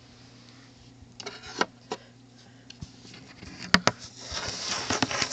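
Handling noise of a phone camera being picked up and moved: scattered light clicks and knocks, two sharper clicks about three and a half seconds in, then rustling toward the end, over a low steady hum.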